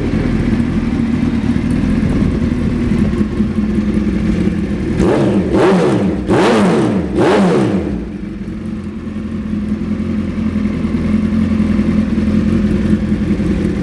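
2005 Suzuki Hayabusa's inline-four engine idling through an aftermarket Brock's exhaust. It is blipped three times in quick succession about five seconds in, each rev rising and falling straight back, then it settles to a steady idle.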